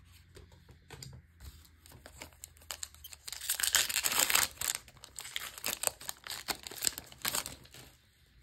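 Magic: The Gathering set booster pack being torn open and its foil wrapper crinkled, with the crackling loudest about three to five seconds in.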